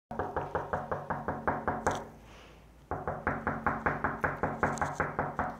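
Rapid, evenly spaced knocking, about eight strikes a second, each with a short pitched ring. It comes in two runs, with a pause of just under a second about two seconds in.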